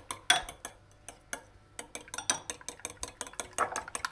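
Two raw eggs being beaten in a small glass bowl, the utensil clicking rapidly against the glass, several strokes a second, with a short lull about a second in.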